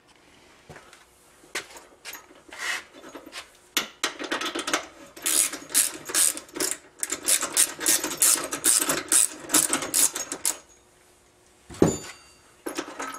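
A ratchet wrench clicking in quick strokes, several a second, as a bolt is backed out of a boat's jack plate, after a few scattered knocks of the tool being set on the bolt. Near the end, a single sharp metal clink.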